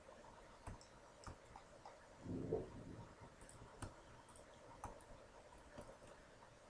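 Faint, scattered clicks of a computer mouse and keyboard as vertices are selected and moved, over quiet room tone. A brief low voice sound comes about two and a half seconds in.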